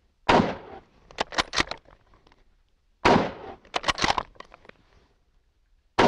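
M1903 Springfield bolt-action rifle shot three times, about three seconds apart, the third near the end. About a second after each shot comes a quick run of metallic clicks as the bolt is worked to chamber the next round.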